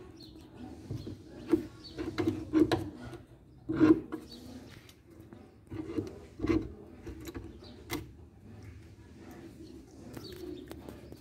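A puppy moving about inside a wooden dog house: a run of knocks and bumps, the loudest about four seconds in, over a low steady hum.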